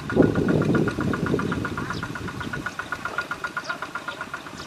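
Single-cylinder diesel engine of a two-wheel walking tractor running with a fast, even knocking beat, about ten a second, as it hauls a loaded trailer through deep mud. The engine is loudest in the first second and grows gradually quieter.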